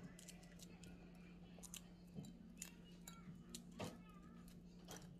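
Faint, scattered clicks and small crackles of a boiled balut (fertilized duck egg) shell being picked and peeled away by fingers, over a steady low hum.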